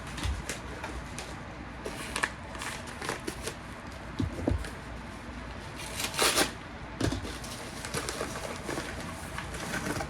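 A small package being opened by hand: paper and cardboard rustling and crinkling in irregular bursts, with a few light knocks of the box. The loudest burst comes about six seconds in.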